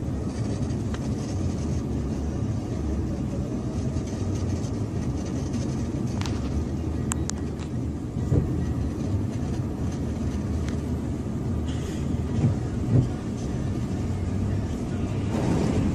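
A semi truck and a pickup driving through deep floodwater: a steady low rumble of engines and rushing spray, with a few short knocks.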